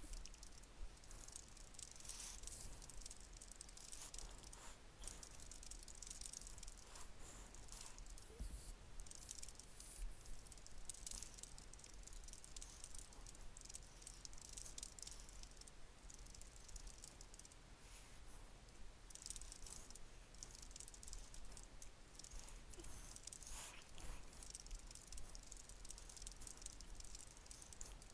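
Faint typing on a computer keyboard: a rapid run of keystroke clicks with brief pauses.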